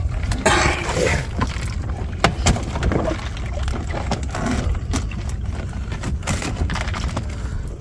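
Scattered knocks and rattles of a woven-bamboo shrimp trap being handled, over a steady low rumble.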